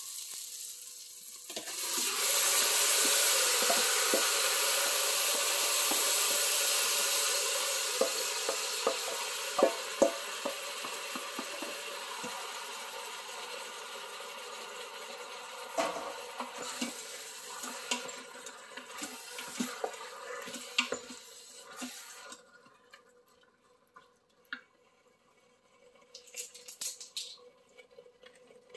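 Marinated raw beef cubes hitting the hot oil and caramelized onions in an Instant Pot on sauté: a loud sizzle starts about a second and a half in and slowly dies away over some twenty seconds as the meat lets out its juices. A wooden spoon knocks and scrapes against the stainless steel inner pot while stirring.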